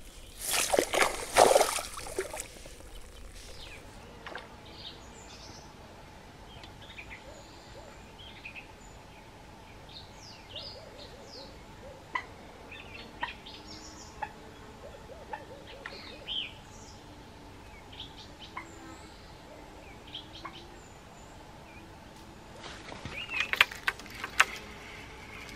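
A short burst of splashing about a second in as a landed bream is put into a keepnet, then small birds chirping and calling on and off. A few sharp clicks and knocks near the end.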